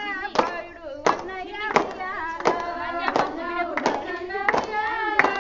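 Women singing a Bathukamma folk song, with a steady beat of hand claps about three every two seconds keeping time for the circle dance.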